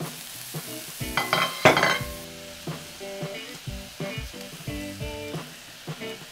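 Zucchini noodles, onion and cherry tomatoes sizzling in olive oil in a sauté pan. A louder burst of stirring comes between one and two seconds in.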